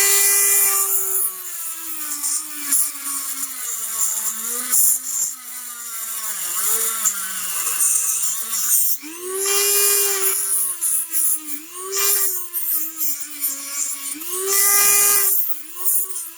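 Dremel rotary tool with a cutoff wheel grinding down a plastic body post. Its high whine drops in pitch as the wheel bites into the plastic and climbs back when it is eased off, several times over.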